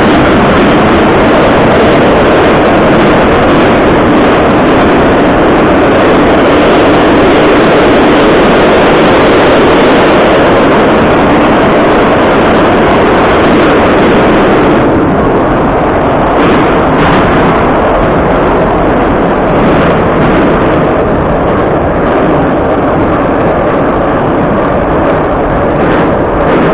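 Moscow metro 81-717.5 train running through a tunnel, heard inside the passenger car: a loud, steady rumble of wheels on rails and running gear. The upper hiss falls away about fifteen seconds in, while the rumble carries on.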